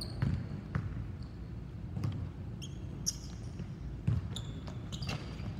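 Basketball thudding on a hardwood gym floor, several separate bounces, with brief high-pitched sneaker squeaks scattered between them.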